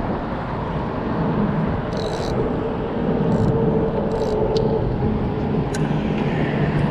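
Steady low rumble of road traffic on the highway bridge overhead, with a few short hisses.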